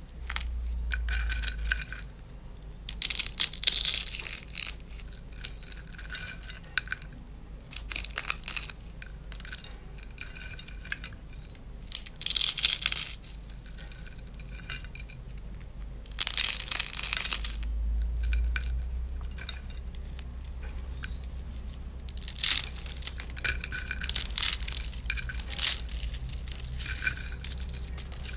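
Hands crushing and crumbling crispy snacks and dry instant ramen noodle blocks in a bowl: bursts of crackly crunching a few seconds apart, coming thicker near the end, with pieces clinking against the bowl.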